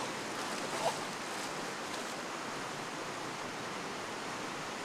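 Steady rushing of a fast, shallow river running over rocks and small rapids. About a second in there is one short pitched vocal cry.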